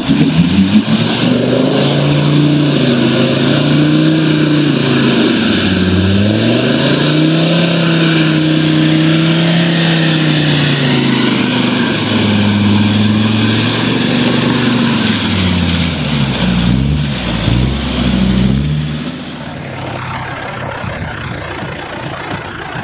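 Land Rover Discovery's engine revving up and down repeatedly as it drives through a deep muddy water hole, over a rush of churned water. The engine pitch changes quickly several times near the end, then the revving stops and a quieter steady noise remains.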